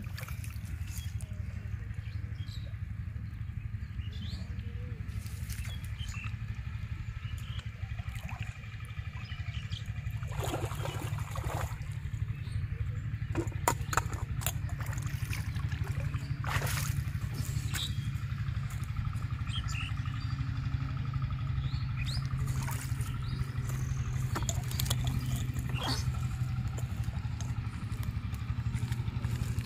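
Steady low hum of a running engine, with scattered sharp clicks and knocks in the middle stretch.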